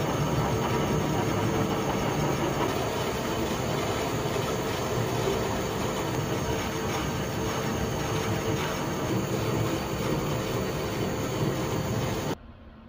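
Precision Matthews 1030V metal lathe running, turning a steel test bar between centers while the tool takes a finishing cut across the bar's collars: a test cut to check for taper after adjusting the tailstock. The steady machine noise stops abruptly near the end.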